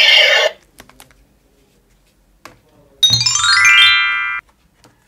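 Electronic sound effects from battery-powered toy guns: a warbling electronic tone that cuts off about half a second in, a few light plastic clicks, then around three seconds in a quick run of beeping tones stepping down in pitch for over a second.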